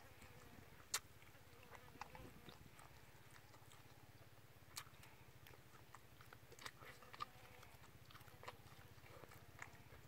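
A person chewing and biting into baked chicken meat, faint, with scattered wet mouth clicks and smacks over a steady low hum.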